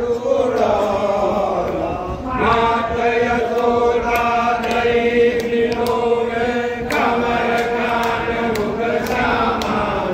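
Group of devotees chanting an aarti hymn in unison, holding one long note for about four seconds from about two seconds in, with sharp strikes scattered throughout.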